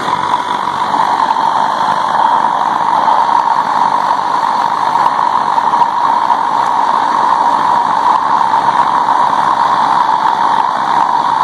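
Homemade compressed-air oil burner, fed through a 1 mm MIG-tip nozzle, firing for the first time: its oil spray lights with a sudden whoosh at the start, then burns with a loud, steady rushing sound.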